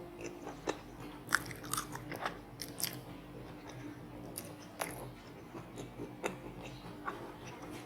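Close-miked chewing and biting of crispy battered fried squid, with irregular crunches, thickest in the first three seconds.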